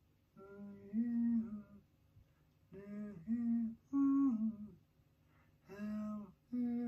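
A man humming a tune in about five short phrases of held notes with pauses between, groping for a half-remembered melody.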